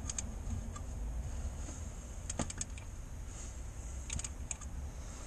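Mini Cooper S engine being turned over slowly by hand with the oil pan off: small groups of sharp metallic clicks, three or four at a time, from the wrench and the turning crankshaft, with one heavier knock-like click about two and a half seconds in.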